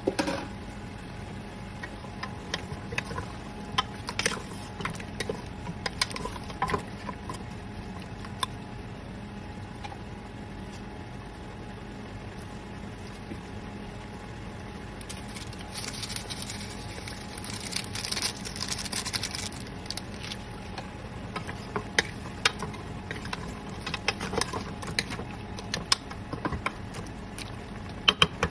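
A metal cooking utensil clicking and knocking against a pot over a steady low hum. A hiss rises for a few seconds about two thirds of the way through.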